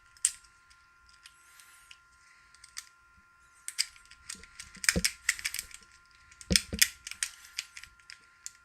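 Lock-picking rake and tension wrench working the pins of a Master Lock No. 1 pin-tumbler padlock: light metallic clicks and scraping, with denser, louder runs of clicks about four seconds in and again about six and a half seconds in.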